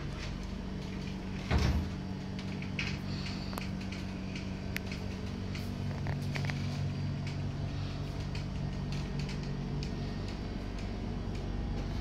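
A steady low hum with scattered small clicks and knocks, and one louder thump about a second and a half in.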